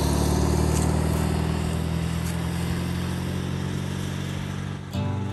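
An old van's engine running steadily while driving, heard from inside the cabin. About five seconds in it cuts to guitar music.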